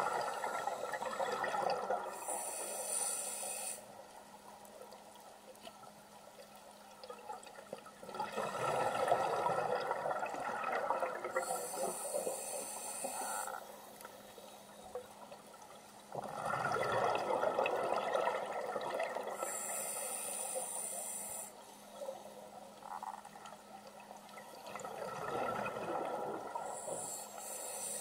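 Scuba diver breathing through a regulator, heard underwater through the camera housing. Long bursts of bubbling come about every eight seconds, each with a high hiss near its end, and it is quieter in between.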